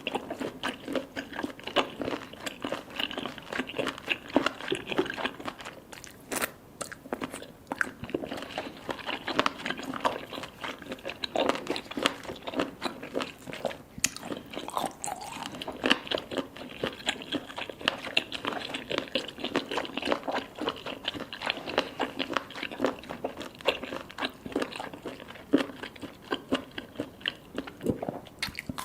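Close-miked chewing and biting of baby cuttlefish: soft crunchy eating sounds, a steady run of small crunchy clicks with no pauses.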